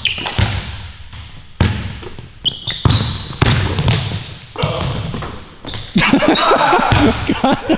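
Basketball bouncing on an indoor court: a handful of sharp, irregularly spaced bounces, with the echo of a large hall.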